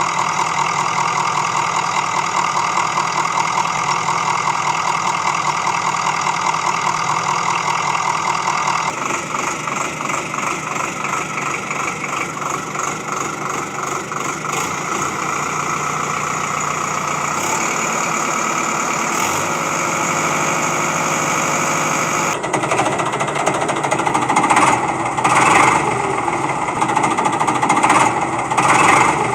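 Small motor of a DIY model tractor-harvester running with a fast, buzzing rattle. The sound changes about 9 and 22 seconds in, and grows louder and more uneven near the end.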